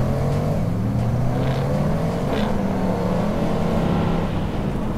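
A Ram pickup truck's engine running and revving as it drives, mixed with the whine of an FPV racing drone's motors, whose pitch rises and falls as the drone chases close behind.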